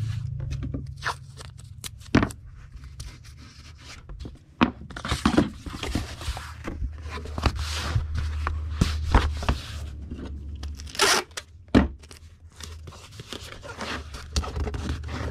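Packing tape pulled off the roll in rasping strips and torn, with scrapes, crinkles and clicks as a cardboard comic mailer is taped shut. A steady low hum runs underneath.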